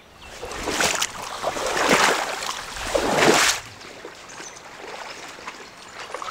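Water sloshing and swishing around legs as someone wades through shallow floodwater: three loud strides about a second apart, then fainter water sounds.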